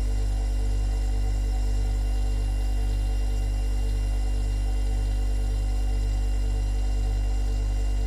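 Refrigerator running: a steady low hum with fainter, higher steady tones above it.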